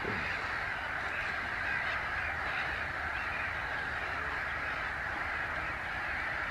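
A steady, dense background chorus of many distant waterbirds calling all at once, blending into one continuous wash with no single call standing out.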